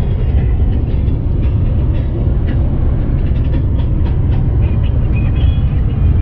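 Heavy truck cruising at highway speed, heard from inside the cab: a steady low rumble of engine and tyre noise, with faint light rattles on top.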